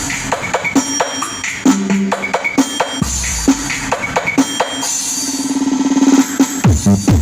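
Electronic dance music with a drum-kit beat played loud through a sound system. A build-up swells in the middle, then a steady, evenly spaced bass-drum beat comes in near the end.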